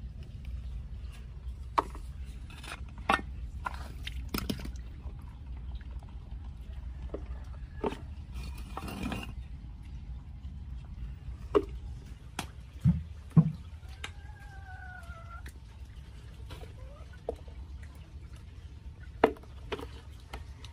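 Hands groping through a shallow muddy puddle among brick fragments and rubble: scattered clicks, knocks and small splashes over a steady low rumble.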